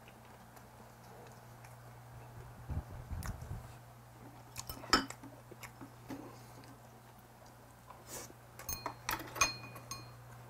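Mukbang eating sounds: metal chopsticks and spoon clinking against ceramic bowls, with a sharp clink about five seconds in and a cluster of ringing clinks near the end, plus soft chewing. A steady low hum sits underneath.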